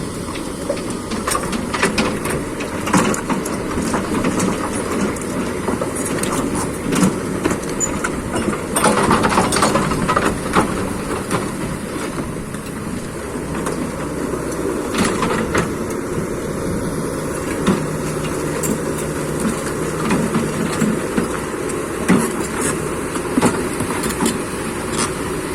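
Kobelco SK200 hydraulic excavator's diesel engine running steadily under load as it compacts mud, with scattered knocks and clanks from the working machine.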